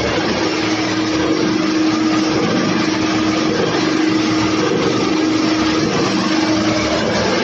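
Tire recycling production line machinery running: a loud, steady mechanical hum over a constant rushing noise, unchanging throughout.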